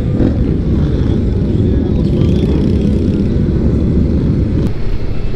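Motorcycle running at freeway speed, with wind rushing over the helmet microphone as a steady low rumble that lightens a little near the end.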